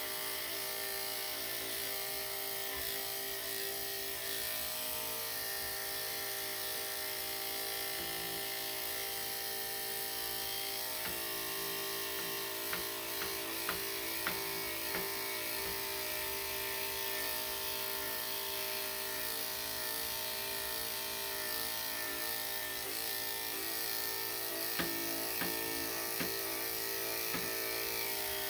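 Electric dog clippers with a #5 blade running with a steady hum, with a few light clicks scattered through the middle and near the end.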